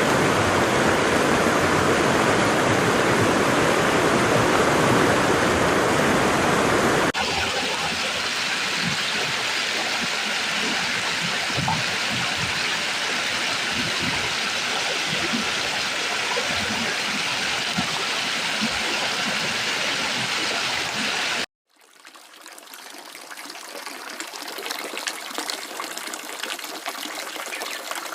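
Waterfall and stream water rushing steadily. The sound changes abruptly about seven seconds in to a lighter, thinner rush, cuts out for a moment later on, and comes back quieter with a splashing trickle.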